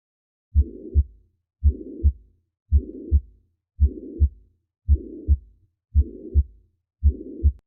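Heartbeat with a systolic murmur: seven beats at about 55 a minute, starting about half a second in. Each beat is a pair of sharp low thumps (first and second heart sounds), and a steady rushing murmur fills the gap between the first and second sound.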